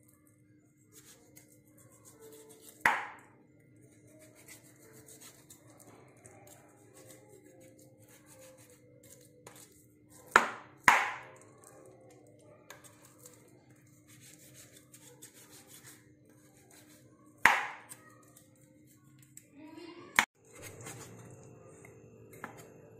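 Kitchen knife cutting raw chicken meat off the bone on a wooden cutting board: quiet slicing and scraping, with five sharp knocks of the blade against the board.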